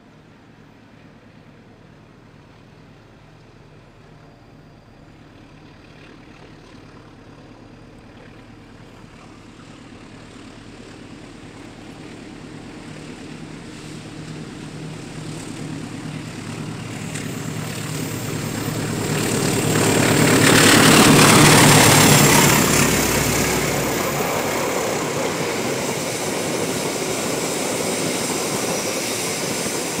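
Diesel-electric locomotive hauling a passenger train, its engine growing steadily louder as it approaches, loudest when it passes about two-thirds of the way through. After that the coaches roll by with a steady rumble of wheels on the rails.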